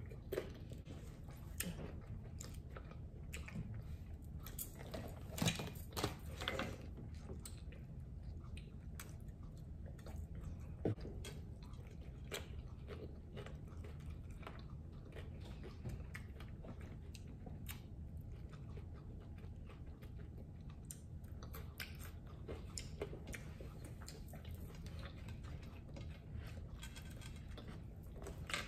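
Close-up eating sounds: chewing with many short crisp crunches of hard taco shells, and a few louder bites about five, six and eleven seconds in.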